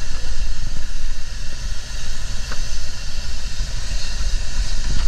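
An engine on a diving boat running steadily, with a loud low rumble that flutters unevenly and a steady hiss above it.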